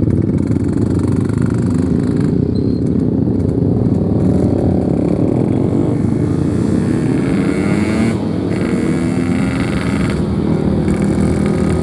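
Yamaha RX-King 135cc two-stroke motorcycle engine running steadily under way, its pitch wavering a little as the throttle changes.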